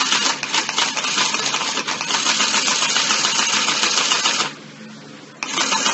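Battery-powered toy sewing machine for kids running, its needle mechanism making a rapid, even clatter. It stops about four and a half seconds in, then starts up again about a second later.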